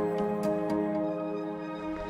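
Soft new-age background music of gentle held notes, easing slightly in level toward the end.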